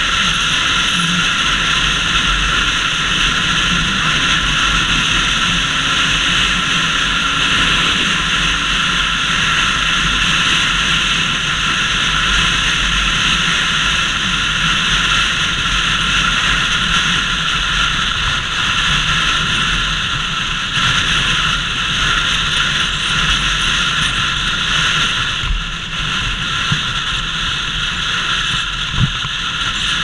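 Steady wind blast over a helmet-mounted action camera's microphone while riding a motorcycle at road speed. A couple of short knocks come near the end.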